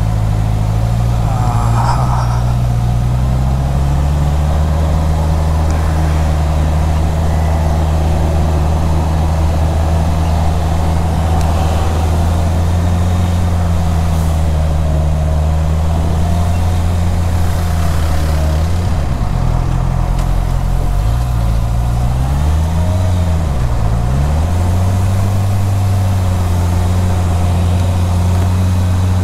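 Honda CB650R's inline-four engine running at low, steady revs while the bike creeps through slow traffic. The revs dip and pick up again a few times about two-thirds of the way in.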